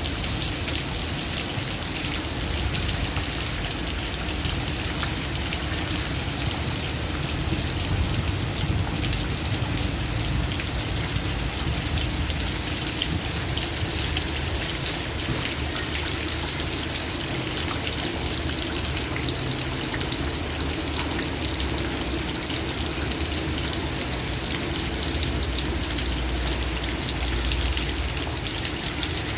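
Heavy rain falling steadily, a dense hiss of drops with many small pattering ticks on hard surfaces and a low rumble of wind underneath.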